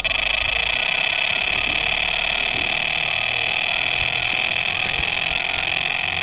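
Electronic carp bite alarm sounding one continuous high tone in rapid-fire pulses as line is pulled from the reel: a screaming run, the sign of a carp taking the bait and running.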